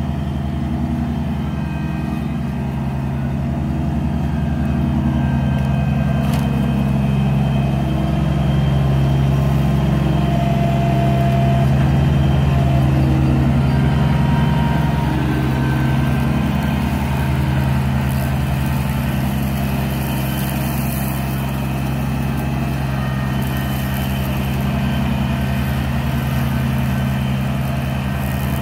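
Compact tractor engine running steadily as the tractor moves slowly across grass. The engine grows slightly louder around the middle and then settles back.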